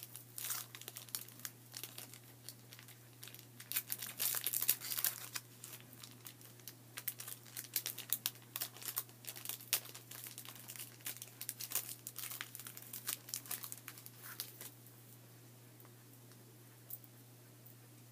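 Wrapper of a pack of WWF No Mercy trading cards crinkling and tearing as it is opened by hand, in an irregular run of crackles that stops about three seconds before the end.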